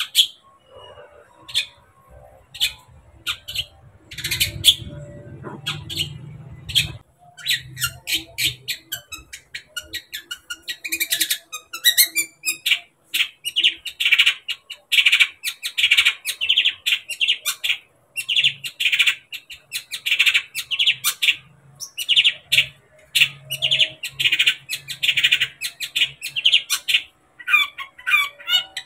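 Long-tailed shrike (cendet) singing a fast, harsh chattering song of sharp clicks and squeaky notes, scattered at first and then dense and nearly unbroken from about eleven seconds in: a bird in full, vigorous song. A low rumble lies under it from about four to seven seconds in.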